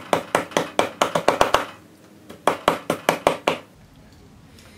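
Rapid hard knocks of a plastic utensil jabbing at banana pieces stuck together, to break them apart, about six a second. It pauses briefly a little under two seconds in, then goes on for about another second.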